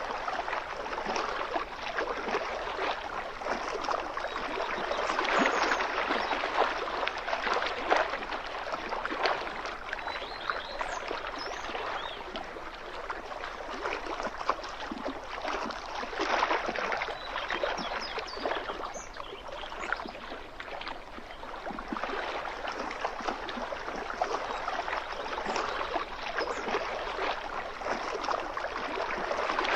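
Lake water lapping and splashing against the shoreline in small waves: a steady, uneven wash of gurgling water that swells and eases every few seconds.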